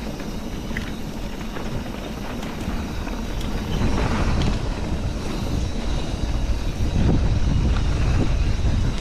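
Mountain bike riding on a dirt trail: tyre and trail noise with wind rumbling on the microphone, getting louder about four seconds in, with a few light rattles.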